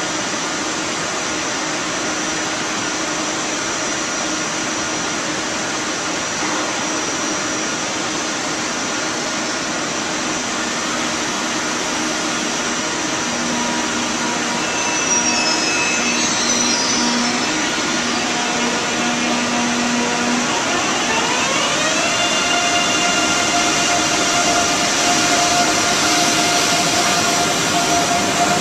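ICE 3 electric high-speed train standing at the platform with its ventilation and equipment running in a steady loud hiss; about three quarters of the way through, a rising electric whine of the traction drive sets in and then holds as the train begins to pull away.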